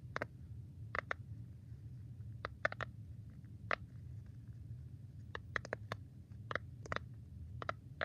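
Silicone pop-it push-bubble fidget being pressed, its bubbles popping in a series of short sharp pops at an uneven pace, several in quick pairs or runs of three or four.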